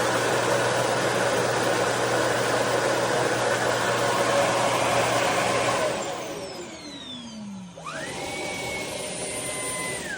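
Shark cordless stick vacuum running with a steady loud whir. About six seconds in, the motor winds down with a falling whine. Then a thinner, high steady whine spins up, holds for about two seconds and drops away near the end.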